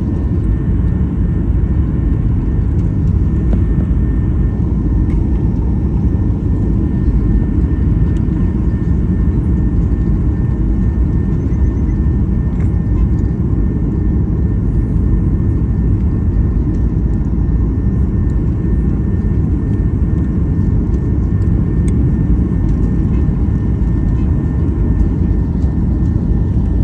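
Steady roar of jet airliner cabin noise from engines and rushing air, heard from inside the cabin on a low descent, with a faint steady whine above the deep rumble.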